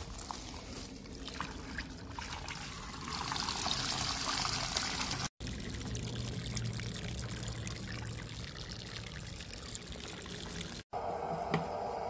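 Drain water from a home water heater flush pouring out of a garden hose through a cloth tied over its end, which catches the tank's sediment, and splashing onto gravel; the flow grows stronger a few seconds in. About a second before the end it gives way to a steady hum.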